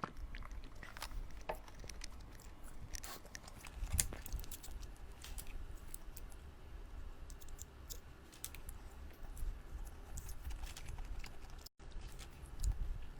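Close-up mouth sounds of someone eating: steady chewing with many small wet clicks and smacks scattered throughout.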